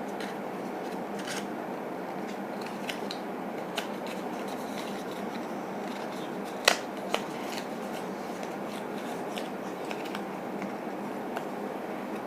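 Small clicks and light scratching of box contents and packaging being handled over a steady background hiss, with two sharper clicks about halfway through.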